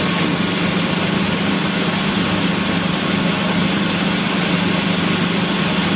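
Small boat engine running steadily at an even, unchanging speed with a constant hum.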